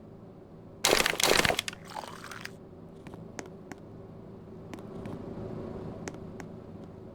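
Ceiling fan running with a steady low hum. About a second in, a loud crunching, crinkling noise lasts about a second and a half and then fades, with faint ticks after it.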